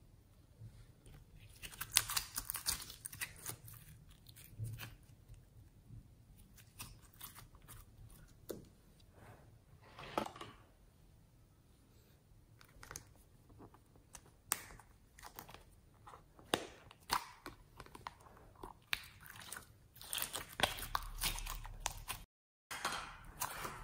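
Hands stretching and squeezing glittery slime: irregular sticky crackles, pops and clicks with louder clusters now and then. Near the end a thicker crunching and crackling as foam-bead floam slime is squeezed, broken by a brief cut to silence.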